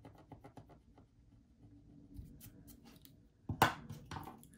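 Marker pen writing on paper: a quick run of short scratchy strokes, then two louder scuffs near the end.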